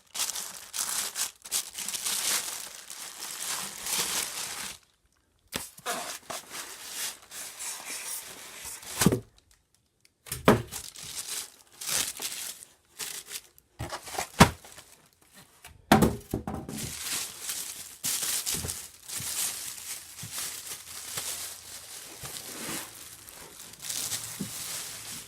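Cardboard and plastic packaging of a new upright vacuum being pulled apart and handled: continuous crinkling and tearing, with a few sharp knocks as parts bump the box.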